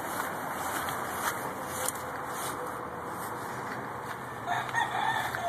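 A rooster crowing once near the end, a short pitched call that falls at its close, over a steady background hiss.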